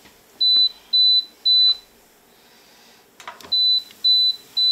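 Countertop air fryer oven's end-of-cook alert: three short, high, steady beeps, then a click as the oven door is opened about three seconds in, then three more beeps. The beeps signal that the timed cook cycle has finished.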